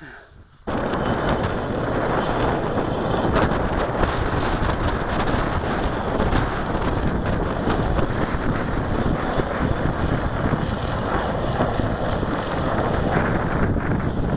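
Wind blowing across the microphone: a loud, unbroken rush of noise that starts suddenly just under a second in and holds steady.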